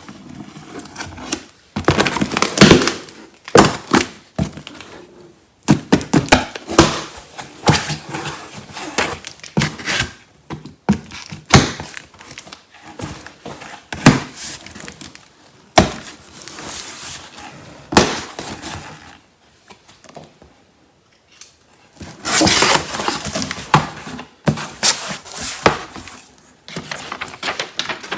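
A cardboard shipping box being opened and unpacked by hand: irregular knocks, scrapes and rustling, with a brief lull and then a longer stretch of rustling about twenty-two seconds in.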